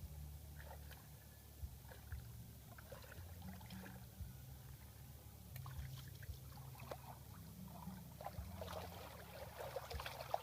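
Water trickling and splashing, with scattered light knocks, over a steady low rumble; the splashing gets busier near the end.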